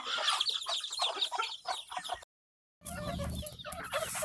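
Deshi chickens, young chicks among them, giving many quick high peeps and clucks. The sound drops out completely for about half a second a little past two seconds in.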